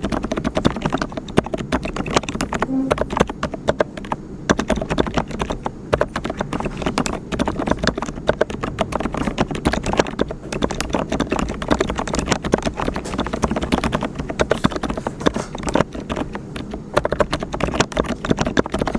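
Fast, continuous typing on a mechanical keyboard with brown (tactile) switches: a dense, irregular stream of keystrokes.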